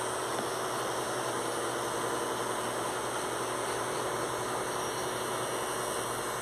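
Cordless electric hair clipper running with a steady buzz, its blade cutting close along the side of the head in short strokes.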